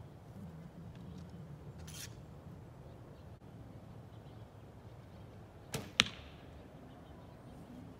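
An arrow shot from a bow: about six seconds in, a snap as the string is loosed, then a quarter second later a louder sharp crack as the arrow strikes the target. A brief faint scrape about two seconds in as the arrow is drawn and nocked.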